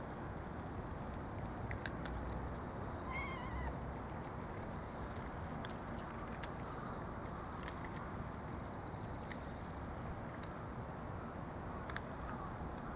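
A cat gives one short meow about three seconds in, over steady background noise with a thin, steady high-pitched tone and a few light clicks.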